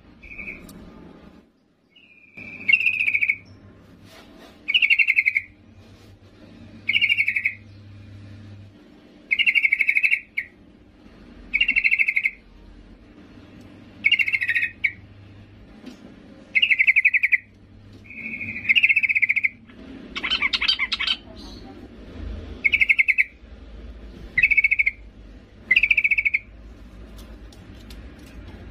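Yellow-vented bulbul (trucukan), a female calling for a male, giving a dozen or so short, buzzy, trilled call notes about every two seconds. One note about two-thirds of the way through is harsher.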